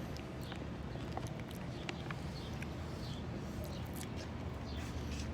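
Faint chewing of a chewy piece of brownie fudge, small scattered mouth clicks over a steady low hum.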